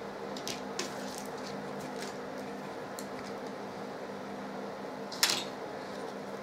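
Small clicks and taps of tiny model kit parts being handled and set down on a paper-covered table, with one louder tap about five seconds in, over a steady electrical hum.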